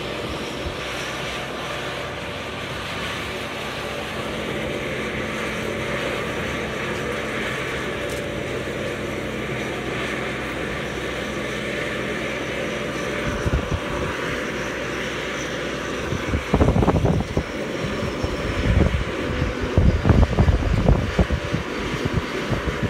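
Truck-mounted crane's diesel engine running steadily as it lifts a sailboat in slings. From about two-thirds of the way in, wind gusts buffet the microphone in irregular low thumps.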